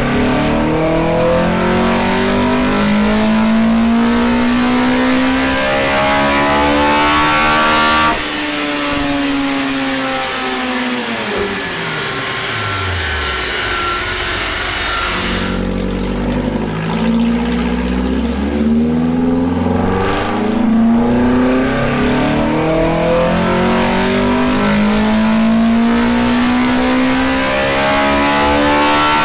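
Toyota 4A-GE twin-cam four-cylinder breathing through individual throttle bodies and 3D-printed velocity stacks, pulling at full throttle on a dyno with its pitch rising steadily. About eight seconds in the throttle shuts and the revs fall away to a low note. About fifteen seconds in a second full-throttle pull begins and climbs steadily to the end.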